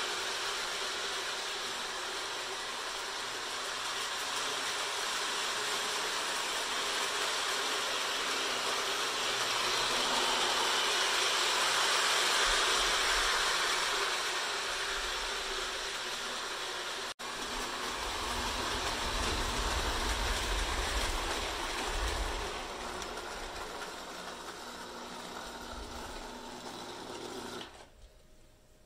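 Lionel O-gauge toy train running on three-rail track: steady whirring of the locomotive's electric motor and the wheels on the rails, with a deeper rumble in the second half. The sound drops away sharply about a second before the end.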